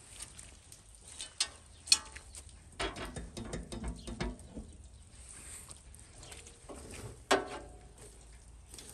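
Steel door of a homemade barrel oven clanking shut and its small brass latch being worked closed: a few sharp metal clicks and a short rattle. About 7 seconds in, one sharp metal clank comes from the firebox as metal tongs are put in.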